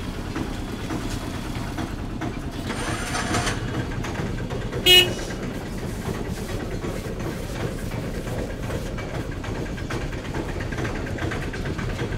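Steady traffic noise with one short vehicle-horn toot about five seconds in, the loudest sound.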